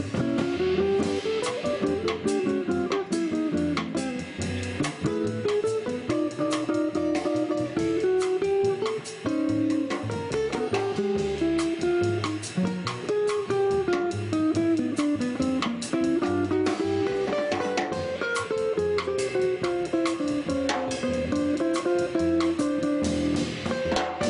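Live small-group jazz: an archtop acoustic guitar plays melodic runs that rise and fall over upright bass and a drum kit keeping time on the cymbals.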